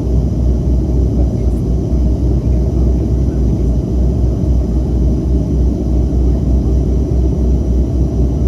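Twin-turboprop Dash 8 Q300's engines and propellers running, a steady low drone with an uneven deep throb.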